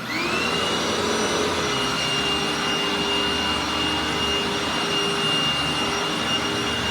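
A Hoover WindTunnel Anniversary Edition bagged upright vacuum is switched on with a click. Its 12-amp motor spins up within about half a second, then runs steadily with a constant high whine.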